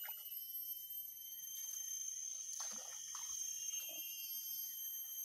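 Steady high-pitched drone of insects, several constant shrill tones held together, with a few faint short sounds in the middle.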